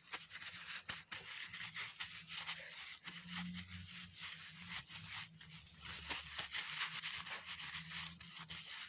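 Hands being rubbed and patted dry, giving irregular scratchy rustling strokes, over a faint steady low hum. The hand is being dried lightly after a coconut-oil coating, not wiped clean.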